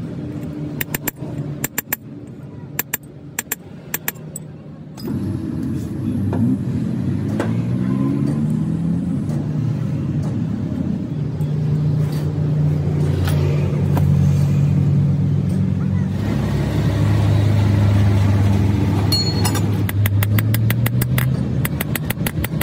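A motor vehicle engine running close by, its pitch rising and falling about six to nine seconds in, then running steadily as the loudest sound. Sharp metal taps come at the start, and near the end a quick regular run of hammer taps on a punch set against the hydraulic jack's steel base.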